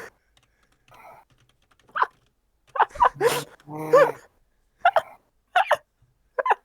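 Stifled laughter: a string of about six short nasal snorts and squeaky giggles, held back in the throat.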